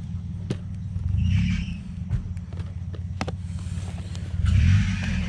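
Low rumbling noise that swells twice, each time with a hiss rising alongside it, and two light taps as cardboard ornament boxes are picked up and set down.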